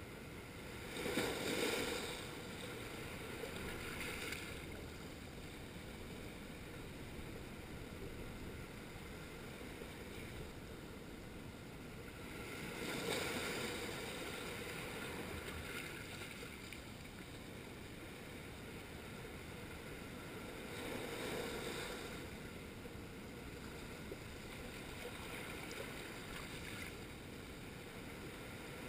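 Small sea waves washing in over a flat rocky shore and draining back, a foamy surge every several seconds with a steady wash of water between; the loudest surge comes about a second in.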